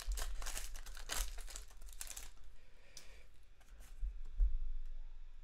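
Foil Pokémon booster pack wrapper being torn open and crinkled for about two seconds, then quieter rustling and ticks as the cards are slid out of it, with a dull bump about four seconds in.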